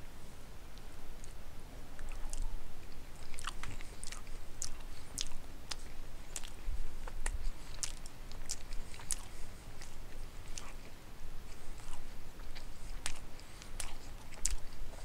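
A person chewing a mouthful of pot roast, carrots and potatoes close to the microphone, with many sharp clicks and smacks at an irregular pace.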